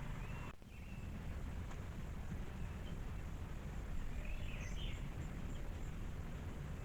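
Faint bird chirps, a few near the start and a short cluster about two thirds of the way in, over a steady low outdoor rumble that briefly drops out just after the start.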